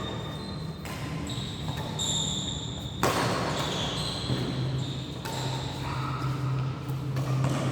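Badminton play on an indoor court: sports shoes squeaking on the court floor in short high squeals. Noise rises suddenly about three seconds in, and a steady low hum runs underneath from about four seconds on.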